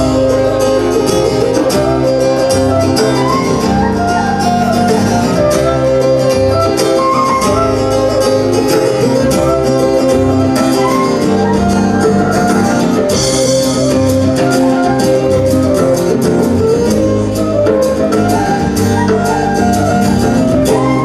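Scottish folk band playing an instrumental passage live: strummed acoustic guitar and fiddle over a moving bass line, with no singing.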